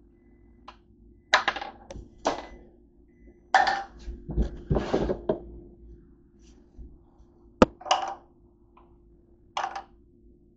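Close handling noises: a run of short scraping rustles and knocks as small objects are picked up and moved, with one sharp click about three-quarters of the way through.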